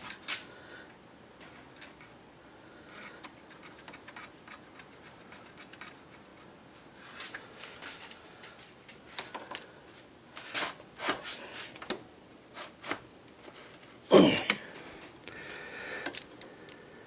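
Hand tools clicking and clacking on the metal stopper plug of a car's AC receiver-drier while locking pliers are set on a bolt in the plug: quiet handling with scattered sharp clicks in the second half, the loudest clack about fourteen seconds in.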